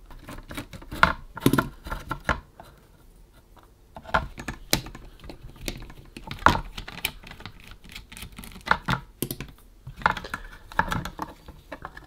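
Irregular small clicks and taps of undoing screws with a precision screwdriver and handling a Bluetooth speaker's circuit board and plastic housing, with a quieter pause about a third of the way in.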